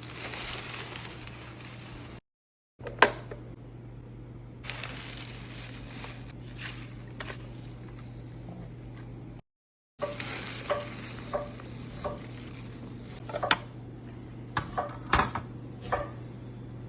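Rustling and light clicks of plastic produce containers and spinach leaves being handled, over a steady low hum. The sound drops out completely twice for about half a second.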